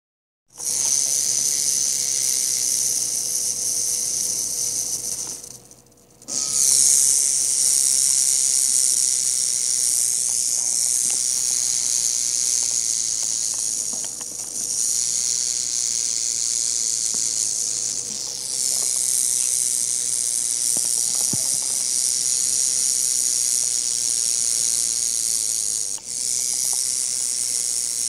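Rattlesnake shaking its tail rattle in a continuous high-pitched buzz, the defensive warning of a disturbed snake. It runs in long bouts, stopping briefly about six seconds in and faltering for a moment a few more times.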